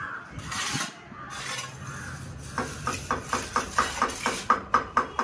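A steel plastering trowel working cement plaster along a wall corner. First come a few rough scraping strokes, then, from about halfway, a quick run of short, ringing strokes, four or five a second.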